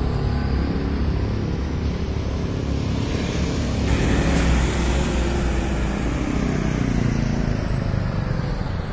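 Road traffic passing: cars, motorcycles and trucks going by with a steady low engine rumble, swelling a little about four seconds in as a dump truck passes close.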